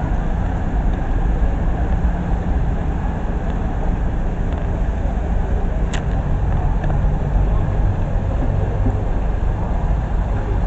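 Steady rumble of road traffic, with a single sharp click about six seconds in.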